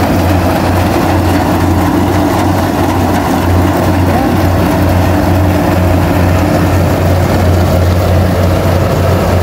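Tracked rice combine harvester running steadily as it cuts standing rice: a constant deep engine hum with an even, steady tone above it.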